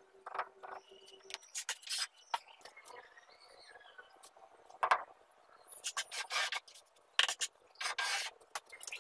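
Irregular scraping strokes of a trowel and mortar against a lightweight aerated concrete block as the block is set, with two sharp knocks about five and seven seconds in.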